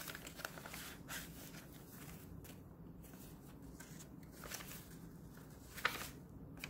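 Paper pages of a handmade junk journal being handled and turned: soft rustling with a few brief crisp flicks, the sharpest about six seconds in as a page is flipped over.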